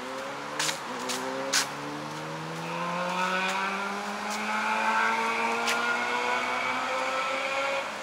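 A motor vehicle engine pulling away, its pitch dropping about half a second in and then rising slowly and steadily before it cuts off abruptly near the end. A few sharp clicks come in the first two seconds.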